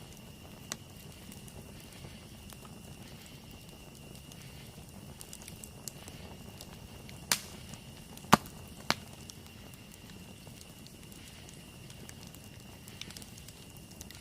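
Campfire burning with a low steady rush and a few sharp pops of burning wood, three of them close together a little past the middle. A faint steady high-pitched tone runs underneath.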